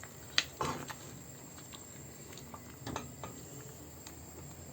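Spatula stirring beef liver and heart through thick spice masala in a pan, frying it down, with a few sharp clicks of the spatula against the pan.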